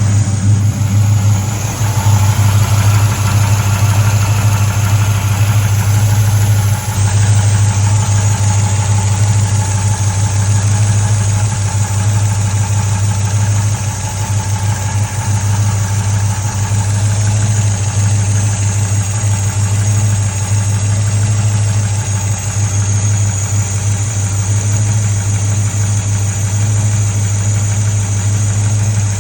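A 1968 Chevelle's 327 small-block V8 idling steadily with lifter noise. The #6 intake pushrod is not spinning.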